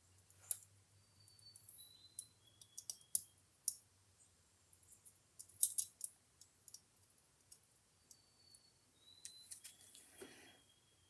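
Scattered small metallic clicks and taps, with a few short high scrapes, of a screwdriver tip and a tiny screw against the tonearm's yoke as the screw is worked into place, and a brief soft handling rustle near the end.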